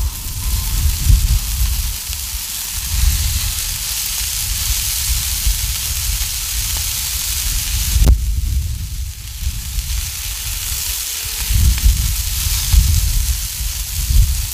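Ground-beef balls and bacon sizzling on a hot Blackstone flat-top griddle, a steady high hiss as the meat sears. A single sharp click comes about eight seconds in as the metal tongs touch the griddle. Wind buffets the microphone in gusts, a low rumble that comes and goes.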